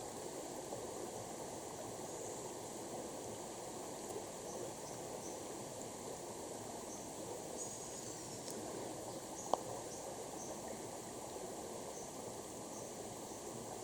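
Steady rush of flowing water, like a creek, with faint high chirps from birds or insects scattered through it and a single sharp click about ten seconds in.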